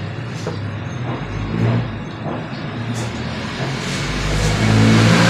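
A motor vehicle's engine running steadily, growing louder toward the end as it comes closer.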